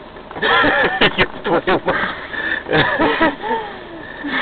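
Indistinct voices of people in the car talking, starting about half a second in and running on in quick exchanges.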